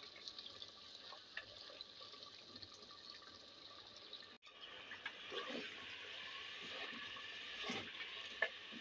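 Faint hiss and bubbling of meat and water simmering in a clay cooking pot, stirred with a wooden spoon. There are a few soft knocks in the second half.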